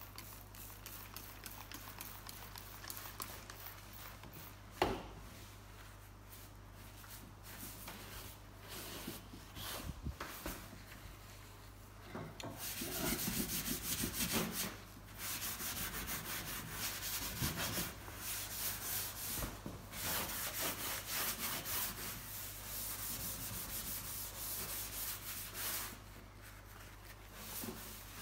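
Steel wool scrubbing stripper-wet paint on a steel engine lid in quick, steady back-and-forth strokes. This is the wet-scrubbing stage of chemical paint stripping. The scrubbing starts a little under halfway in and stops shortly before the end, after a quieter stretch with one sharp knock.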